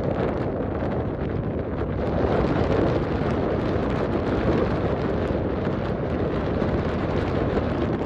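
Strong wind blowing across the microphone, a steady loud rushing noise.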